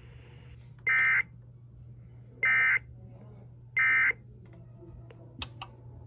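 Emergency Alert System end-of-message signal: three short, identical bursts of SAME digital data tones about 1.5 seconds apart, marking the end of the alert. A steady low electrical hum sits underneath, and a couple of faint clicks come near the end.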